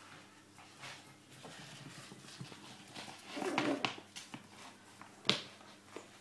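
Small puppy worrying a slipper, giving a short vocal sound about three and a half seconds in, with a sharp tap a little later.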